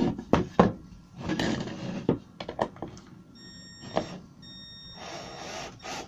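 Cordless drill-driver winding in a concealed cabinet hinge's adjustment screw, with several sharp clicks of the bit and hinge in the first half. The drill motor then runs steadily from about two-thirds of the way in.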